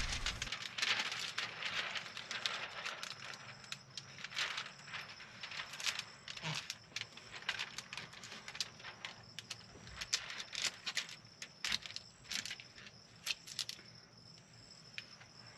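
Thin plastic window-tint film crackling and rustling in many short, irregular crackles as hands press and smooth it onto wet glass. A faint steady high insect trill goes on behind it.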